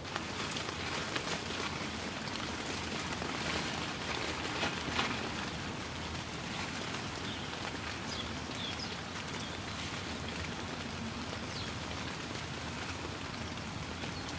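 Steady rain falling, with a plastic tarp rustling and crackling as it is unfolded and shaken out.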